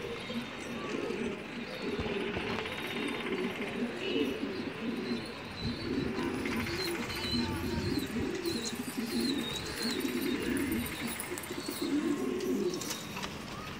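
A flock of domestic pigeons cooing, several birds overlapping in a continuous low warble, with high chirps now and then.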